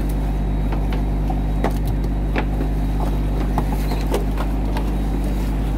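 Fishing boat's engine running steadily, a constant low hum, with scattered light clicks and taps over it.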